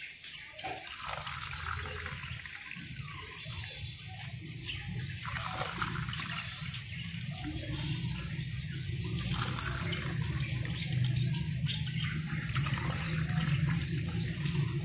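Liquid syrup pouring from a pan into a plastic popsicle mould and splashing into its cups, slowly growing louder toward the end.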